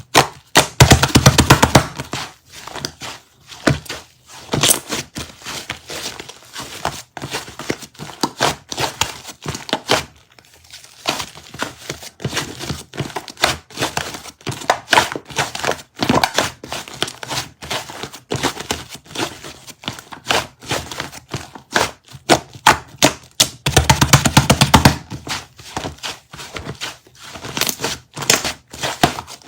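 Light-purple and white shaving-foam slime being squished and pressed by hand, giving a dense run of small crackles and pops. It gets denser and louder about a second in and again near the end.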